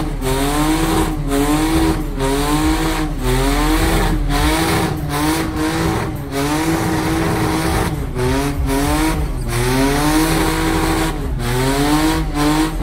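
A car doing smoky donuts: the engine revs up and down about once a second while the spinning tyres squeal.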